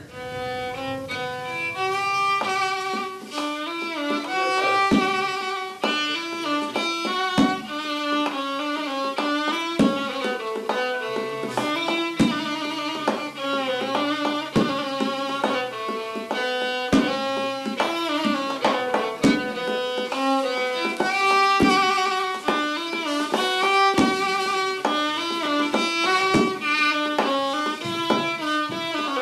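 Instrumental music over the end credits: a stepping melody of pitched notes, with a short low drum stroke about every two and a half seconds.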